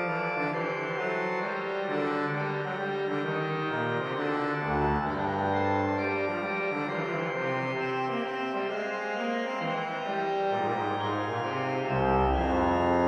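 Organ playing a French Baroque basse de trompette: a solo line of reedy trumpet-stop notes moving in the bass under held chords in the upper voices.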